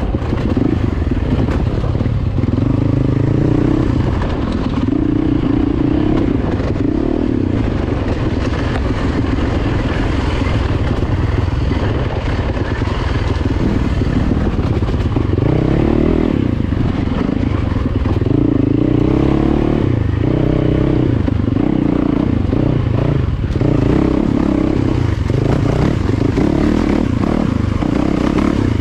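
Yamaha YZ450FX dirt bike's single-cylinder four-stroke engine, heard close from the bike itself on a rough trail. It revs up and eases off again and again, with clatter from the bike over rocky ground.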